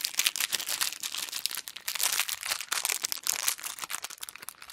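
Thin plastic blind-bag sachet crinkling and crackling without pause as it is handled and opened.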